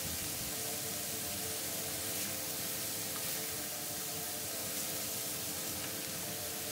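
Shredded cabbage frying in bacon fat in an enamelled cast-iron pot: a steady sizzle, with a faint low hum underneath.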